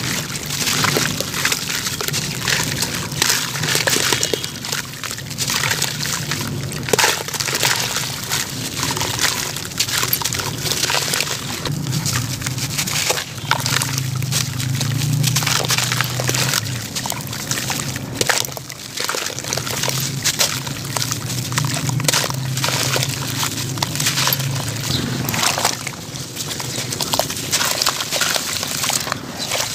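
Wet, gravel-studded sand-cement being crumbled by hand into a bucket of water: continuous crunching and crackling of grit, with splashing and sloshing as the pieces drop in.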